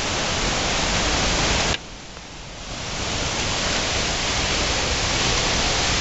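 Waterfall in full winter flow: a loud, steady rushing of falling water. It drops suddenly a little under two seconds in and swells back over the next second.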